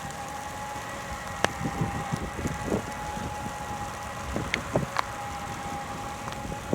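John Deere S790 combine running, a steady mechanical whine held at two pitches over a broad rushing noise, with a few sharp ticks and low knocks scattered through it.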